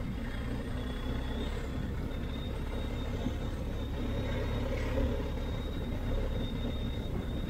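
Steady low rumble of a BMW R 1250 GS Adventure motorcycle under way, its boxer-twin engine mixed with wind and road noise, with a faint thin high tone over it.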